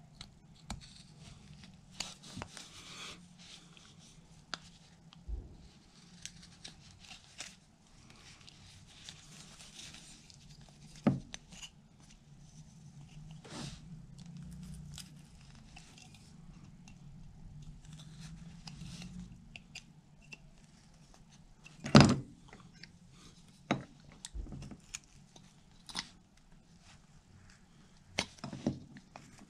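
Small carving knife slicing and paring basswood by hand: short scraping cuts with scattered clicks and taps, and one sharp knock about three-quarters of the way through.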